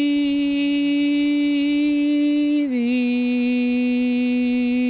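A dog trainer's voice drawing out the relaxation word "Eeeeaaasyyy" as one long, steady, sung tone that drops slightly in pitch about halfway through. The word is a classically conditioned cue meant to calm a highly aroused dog.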